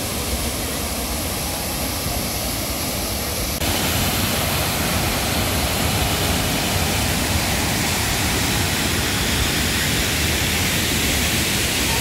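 The Triberg Waterfalls' cascades rushing over rock: a steady, even noise of falling water. About three and a half seconds in it steps up suddenly, louder and brighter.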